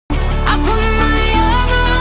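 Background music: a sustained, slightly gliding melody over a steady bass, starting abruptly at the very beginning.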